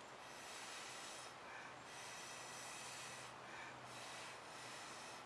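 Faint, slow breathing close to the microphone over a quiet steady hiss.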